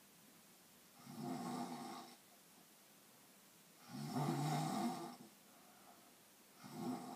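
Snoring: three snores about three seconds apart, the middle one the loudest and longest.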